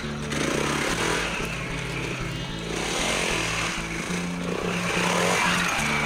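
Single-cylinder four-stroke Honda XR dirt bike engine revving up and down in several swells as it rides around. Blues music with a stepping bass line plays under it.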